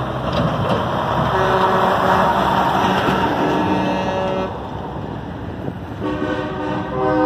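Several vehicle horns honking in long overlapping blasts over the low rumble of idling trucks. The horns drop away about four and a half seconds in, and louder horn blasts start again near the end.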